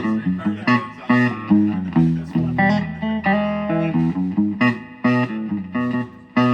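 PRS Silver Sky SE electric guitar played in a sound demo, picking a melodic line of single notes and small chords. Some notes follow quickly and others ring on.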